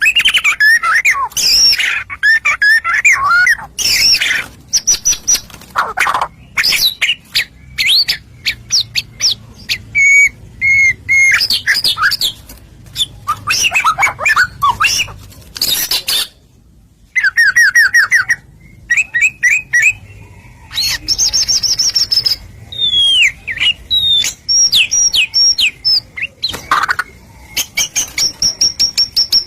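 White-rumped shama (murai batu) singing loudly and almost without a break, a fast run of changing phrases: whistled slurs, quick repeated trills and harsh chattering notes, with a short pause about sixteen seconds in.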